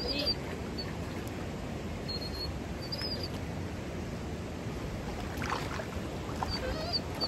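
Steady rush of a flowing river, with a few short high chirps over it.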